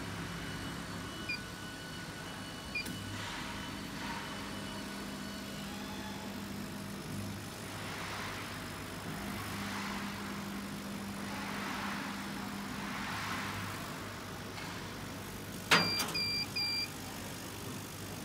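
CO2 laser engraving and cutting machine running a job: steady machine noise, with a motor hum that comes and goes as the laser head moves. Near the end a sharp click is followed by three short high beeps.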